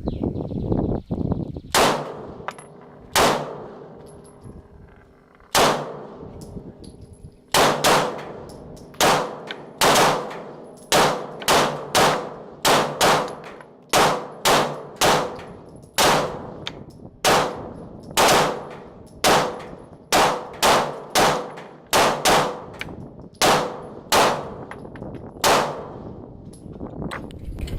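Glock 19 9mm pistol being fired in a long string of sharp shots, about half a second to a second apart, with a few longer pauses in the first few seconds. Each shot rings out with a short echo.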